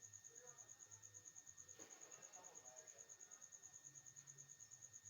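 Faint, steady chirping of an insect: a high-pitched pulse repeating about a dozen times a second over near silence.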